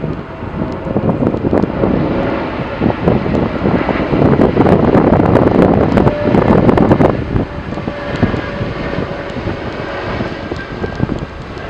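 Airbus A330's twin jet engines running as the airliner rolls out on the runway after touchdown, growing louder to a peak about five seconds in and then easing off. Wind buffets the microphone throughout.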